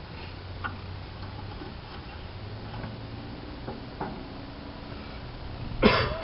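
A few light scattered clicks and taps, with a louder sharp clatter just before the end, over a faint low steady hum.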